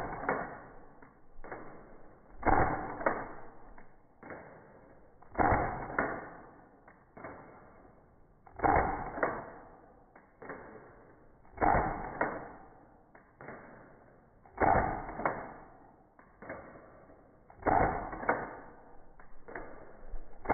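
A blue BB pistol shooting again and again, about once every three seconds, about seven times. Each shot is a sharp snap, followed about half a second later by a second, smaller click.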